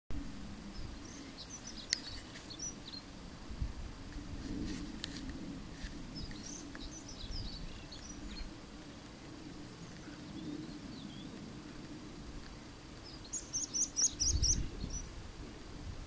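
Small birds chirping in short, high calls scattered throughout, with a quick run of about seven louder high notes near the end, over a low rumble.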